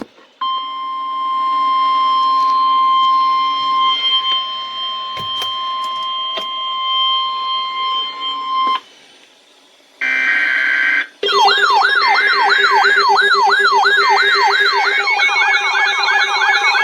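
Weatheradio Canada's 1050 Hz warning alert tone, a steady pure beep held about eight seconds and then cut off. After a short pause comes about a second of warbling digital SAME alert data. A weather radio's electronic siren alarm then starts, a fast wailing sweep about two and a half times a second, and a second alarm pattern joins it near the end.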